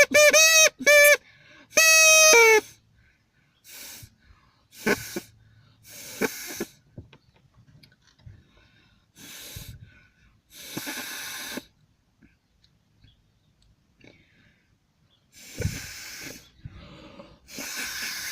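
Drinking-straw reed horn, its end cut to a point on both sides, blown: three short loud toots, then a longer one that drops in pitch at its end. After that come several quieter breathy puffs of air with little or no tone.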